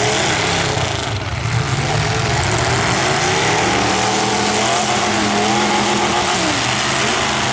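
Several full-size car engines revving and running together at once, their pitches rising and falling over one another in a dense, loud wash of noise.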